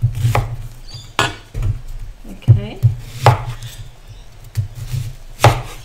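A chef's knife cutting through a whole peeled onion on a wooden chopping board, with a handful of sharp, irregular knocks as the blade meets the board.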